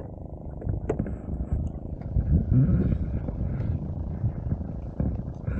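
Motorised fishing boat's engine running steadily under way, with a few faint muffled voices about two to three seconds in.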